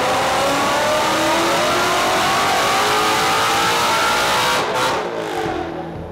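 Supercharged 5.2-litre Predator V8 in a Mustang making a full-throttle pull on a chassis dyno, its pitch climbing steadily as the revs build. About three-quarters of the way through, the throttle closes and the revs fall away.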